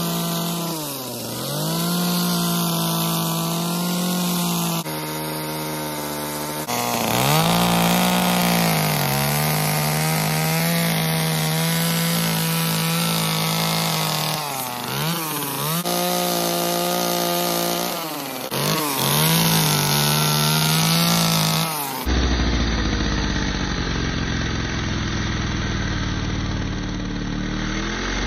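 Two-stroke carving chainsaw running at high revs as it cuts into a wooden log, its pitch dipping and climbing back four times as the throttle eases and the chain bites. Near the end it sounds rougher and duller.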